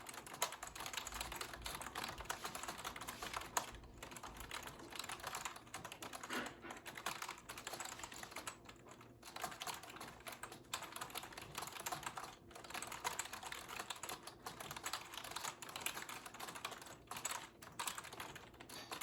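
Fast typing on an iBuyPower membrane keyboard, at around 103 words per minute: a rapid, continuous run of key presses broken by a few brief pauses.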